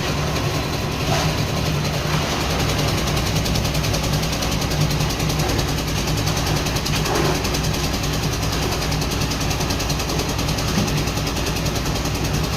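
Concrete mixer machine's engine running steadily with an even, low hum.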